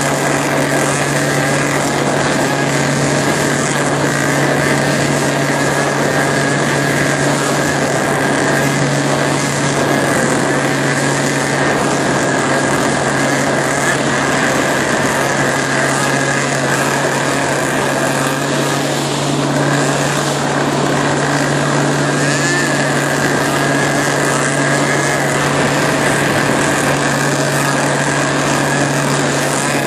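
Steady drone of a motorboat engine running at constant speed, over a continuous rush of water and wind noise.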